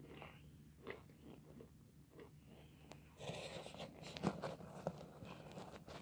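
Close-up chewing and crunching of chunks of white chalky clay. Soft, scattered crackles at first, then a louder, denser run of crunching from about three seconds in, with a few sharp cracks.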